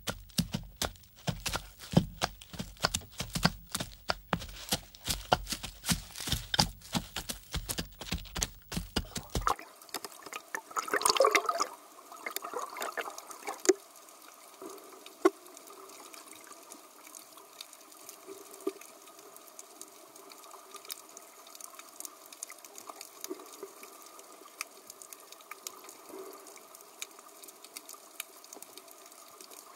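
Zebra tearing and chewing grass, a rapid run of crunchy clicks, for the first ten seconds or so. The sound then changes to underwater ambience: a short burst of bubbling, then a faint steady wash of water with scattered small ticks.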